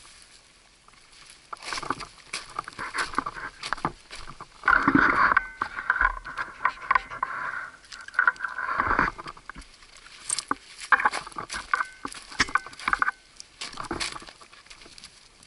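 Footsteps crunching on loose rock and gravel, with close rustling and rubbing of gear against the chest-worn camera, loudest and densest in the middle.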